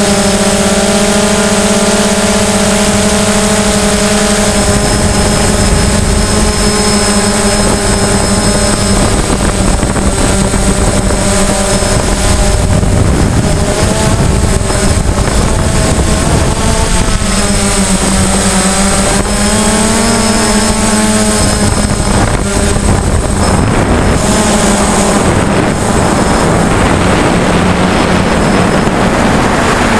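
DJI Phantom quadcopter's motors and propellers whining loudly as heard from its own onboard camera, a steady buzzing tone whose pitch wavers up and down for several seconds around the middle as the drone manoeuvres.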